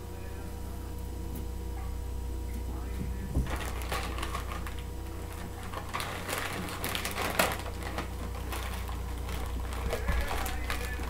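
Plastic bag of frozen mixed berries crinkling and rustling as it is handled, with rapid irregular clicks of the frozen berries inside; near the end the berries start tipping into a plastic blender jar. A low steady hum underlies it all.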